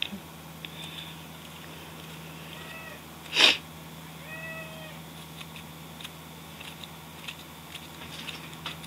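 A cat meowing twice, short calls that rise and fall in pitch, about three and four and a half seconds in. Between them comes a brief loud noisy burst, the loudest sound here, over faint scattered ticks and a low steady hum.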